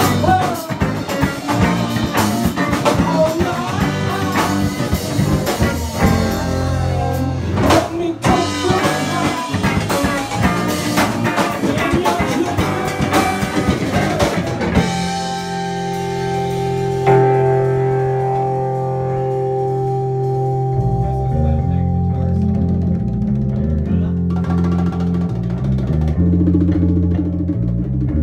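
Live rock band playing electric guitars, drum kit and congas. About halfway through the drums drop out and held guitar notes ring on, then the drums build back in near the end.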